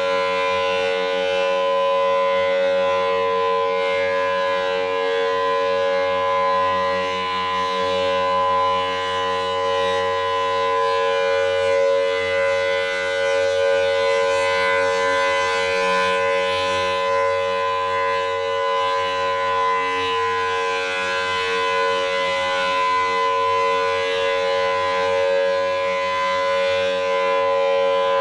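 Federal Signal Thunderbolt 1000T outdoor warning siren sounding its steady Alert tone during a test: one held pitch with harmonics above it, rising and falling only slightly in loudness.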